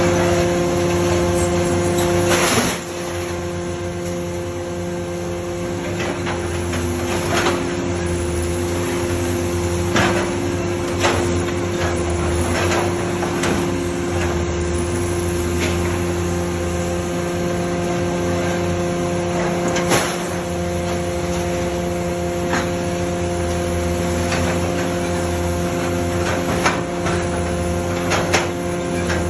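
Hydraulic scrap metal baling press running: a steady hum from its hydraulic pump and motor, with scattered sharp metallic clanks and knocks as scrap shifts and is compacted. The hum drops slightly about three seconds in.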